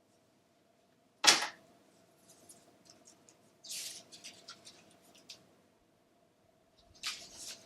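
Cardboard box and paper inserts being handled and pulled out: one sharp snap about a second in, then bursts of papery rustling and scraping, more of it near the end.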